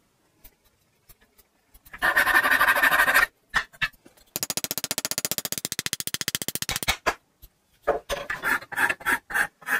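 A wooden chisel handle being shaped by hand: rough, rapid scraping and rubbing strokes, first a burst about two seconds in, then a longer run of quick even strokes over some two and a half seconds, then shorter uneven strokes near the end. The first two seconds hold only a few light handling clicks.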